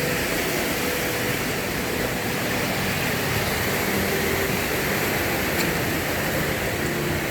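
Steady, loud rush of river water cascading over rocks.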